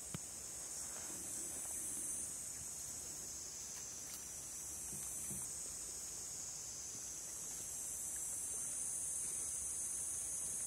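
Steady high-pitched chorus of forest insects, with brief dips in level about two and five seconds in.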